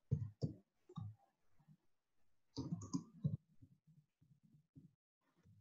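Typing on a computer keyboard: a quick run of keystroke clicks at the start, another run about two and a half seconds in, then scattered fainter taps.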